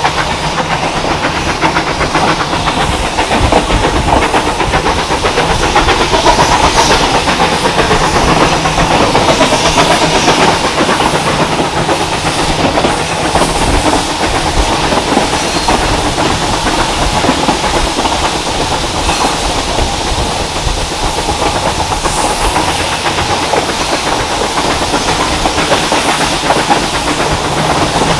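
Narrow-gauge train running at speed behind a Baldwin-built steam locomotive: carriage wheels clattering over the rails, with steam hiss, loud and steady throughout.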